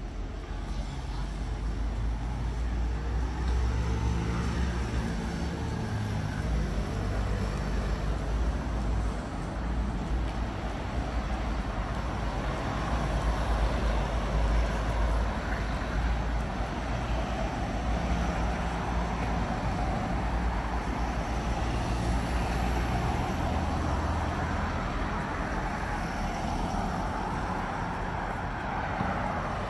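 Street traffic: motor vehicles passing close by, their low engine rumble swelling and easing as they go.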